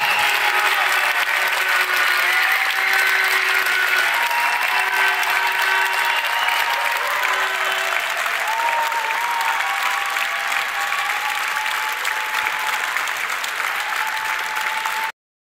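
Audience applauding steadily after the final point of a badminton match, with held calls and tones rising over the clapping now and then. The sound cuts off suddenly near the end.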